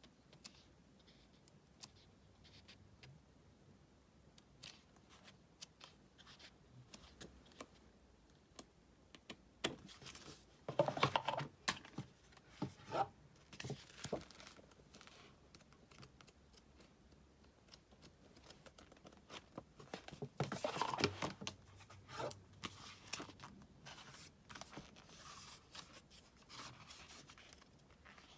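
Album packaging being handled and opened: scattered small taps and rustles, with two louder bouts of tearing and crinkling, about ten seconds in and again about twenty seconds in.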